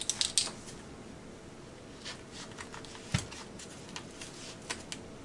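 Small kitchen handling noises: a quick cluster of plastic clicks from a ring of measuring spoons at the start, then scattered light clicks and rustles as raw ribs and their meat trays are handled, with one dull thump a little after three seconds in.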